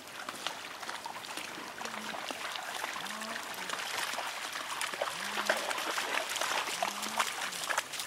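A beagle splashing as it wades and trots through shallow floodwater, many quick splashes that grow louder as it comes closer.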